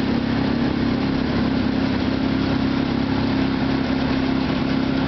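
Tractor and pull-type forage harvester running steadily while chopping haylage: a constant engine drone with a steady hum over it.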